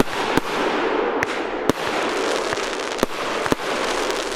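Crackling firework cake firing: a continuous dense crackle of crackling stars with about six sharp reports, roughly every half second to a second.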